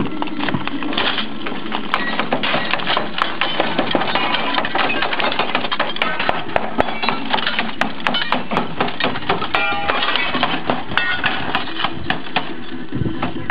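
Glass panes being smashed out of old window frames: a dense run of cracking, clinking shards and knocks on the frame.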